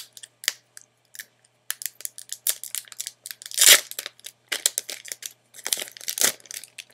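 A Magic: The Gathering Dark Ascension booster pack's foil wrapper being torn open and crinkled by hand: a run of sharp crackles and rips, the loudest about halfway through and again near the end.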